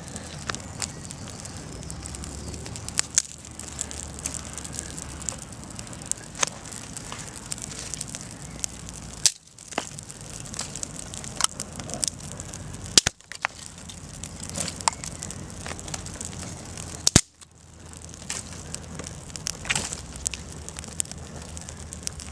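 Small campfire of twigs and sticks burning, the wood crackling with irregular sharp pops and a few louder snaps.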